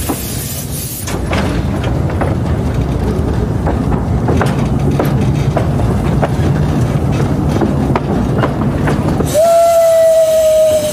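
Steam train rolling along the track, a steady low rumble with scattered clicks from the rails. Near the end a steam locomotive whistle sounds one steady note, held about a second and a half.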